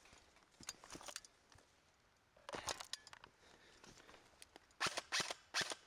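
Footsteps on rough outdoor ground in irregular scuffing bursts, the loudest cluster near the end.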